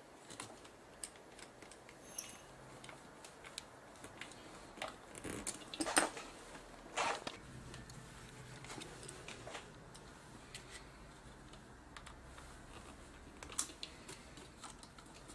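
Scattered small clicks, taps and knocks of hands working screws and panels on a camcorder's plastic body, with a few louder knocks about five to seven seconds in and another near the end.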